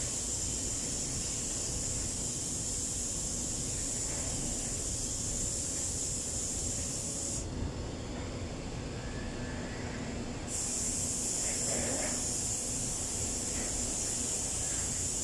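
Steady background hiss over a low rumble. The high, hissing part cuts out suddenly about halfway through for roughly three seconds, then comes back.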